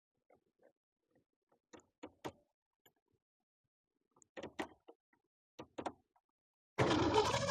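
Scattered light clicks and knocks from parts being handled, with a small cluster about four and a half seconds in. Near the end a loud rushing noise starts suddenly.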